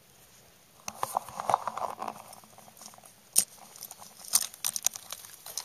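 Crackling rustles and scattered sharp clicks close to the microphone, as of dry grass and twigs being brushed and handled. There is a dense patch of crackling about a second in, one sharp click midway and a quick run of clicks near the end.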